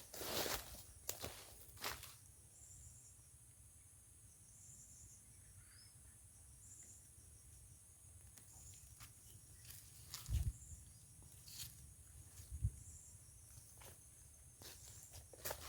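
Steady high-pitched insect drone with short repeating chirps, under scattered footsteps and rustling through vegetation; two low thumps come past the middle.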